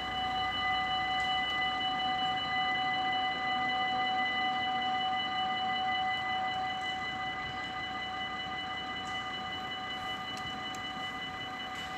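Dutch level-crossing warning bells ringing steadily, a signal that the barriers are closing for an approaching train; the ringing grows a little quieter in the second half.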